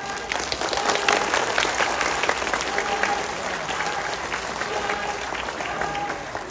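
Crowd applauding, many hands clapping irregularly, with voices among the audience.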